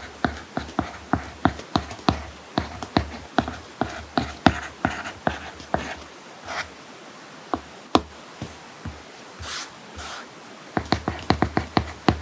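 Apple Pencil tip tapping and scratching on an iPad Pro's matte paper-like screen protector during handwriting. It makes quick clicks, three or four a second, which thin out to a few in the middle and quicken again near the end.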